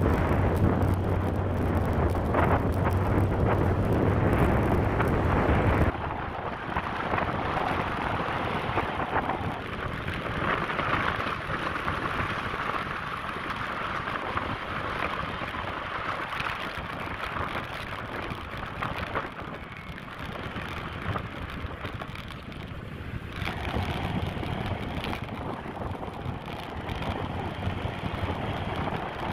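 Motorcycle riding on the open road, its engine and wind noise on the microphone making a steady rush. About six seconds in, the low rumble drops away abruptly and a lighter, even hiss carries on.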